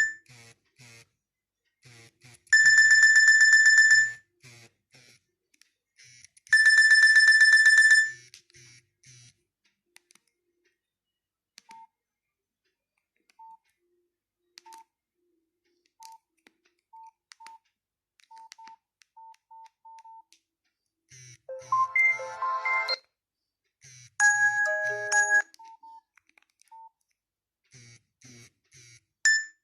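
Nokia 6500 Slide mobile phone sounding through its small speaker: three loud buzzing tone bursts of about a second and a half each in the first eight seconds, then soft short beeps at irregular intervals, then two brief melodic ringtone snippets near the end.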